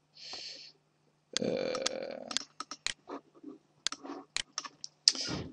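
A series of sharp, separate clicks from a computer mouse and keyboard during work at the desk. A short hiss comes just at the start, and a noisy sound about a second long comes about a second and a half in.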